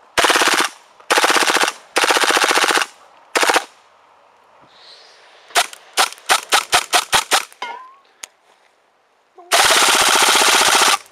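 H&K MP7 A1 gas blowback airsoft gun firing on green gas: four short full-auto bursts, then a quick string of about eight single shots, then one longer full-auto burst of about a second and a half near the end, each burst a rapid rattle of the blowback bolt cycling.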